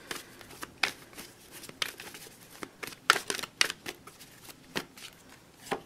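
A tarot deck being shuffled by hand: an irregular string of crisp card snaps and clicks, the sharpest about three seconds in and near the end.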